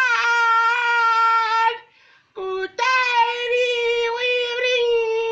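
A man singing unaccompanied in a high voice, holding two long, steady notes with a short break between them.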